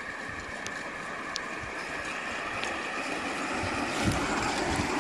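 Electric tender drive of a gauge 3 garden-railway locomotive, twin 365 motors through a gear train, whirring steadily and growing louder as the train comes closer. Three light clicks in the first half.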